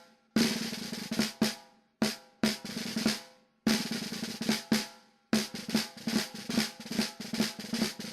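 Snare drum playing a percussion piece of sharp hits and rolls, broken by short pauses.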